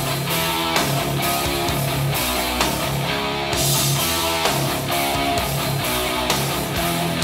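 A song with guitar and a steady drum beat played back through a pair of Yamaha HS5 studio monitors (5-inch two-way speakers), picked up by a recorder in the room.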